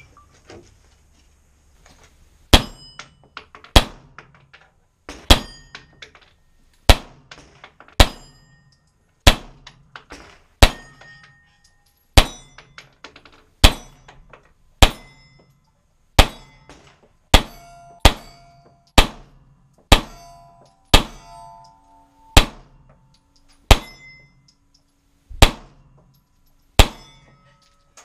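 Pistol shots fired one at a time at a steady pace, about twenty of them roughly a second and a half apart, starting a couple of seconds in, with steel plate targets clanging and ringing briefly after hits.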